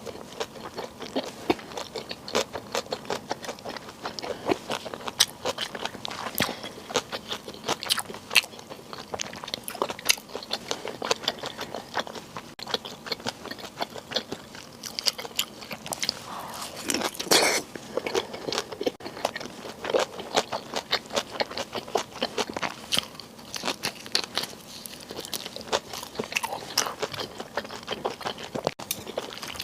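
Close-miked eating sounds: biting and chewing, with many short crisp crunches and wet mouth clicks one after another, and one longer, louder noise about seventeen seconds in.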